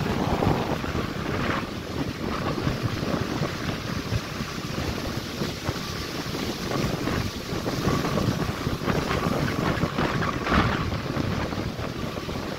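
Wind noise on the microphone over the steady wash of ocean surf breaking on a sandy beach.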